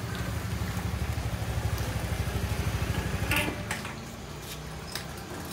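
Small motor scooter engine running as it rides up and slows to a stop, with a brief high squeak about three seconds in, then settling to a quieter idle.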